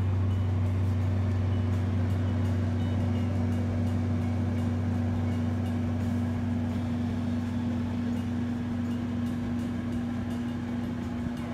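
Danby air conditioner in a small camper trailer running with a steady low electric hum.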